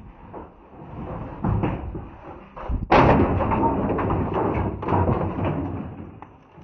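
Phone microphone handling noise: rubbing and knocking as the phone is jostled in the hand and against clothing. About three seconds in, a loud rush of noise starts suddenly and lasts a couple of seconds.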